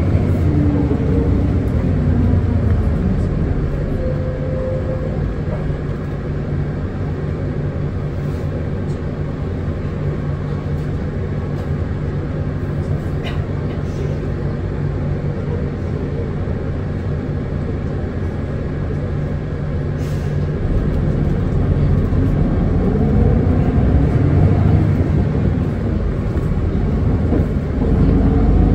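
Running sound of a Hino Blue Ribbon City Hybrid diesel-electric city bus heard from inside. A falling whine as it slows in the first few seconds, then a steady low hum through the middle, then a rising whine as it pulls away again about 21 seconds in.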